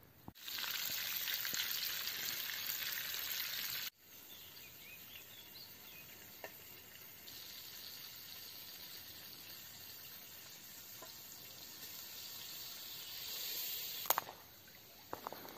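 A loud steady hiss that cuts off abruptly a few seconds in, followed by a quieter, steady sizzle of food frying in a pan over a campfire that grows louder. A few sharp knocks come near the end.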